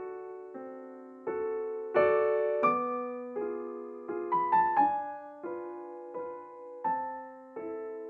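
Soft solo piano music: slow chords and single notes, each struck and left to ring and fade.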